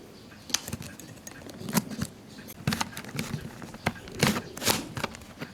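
A series of about a dozen light clicks and knocks at irregular intervals, from small hard objects being handled.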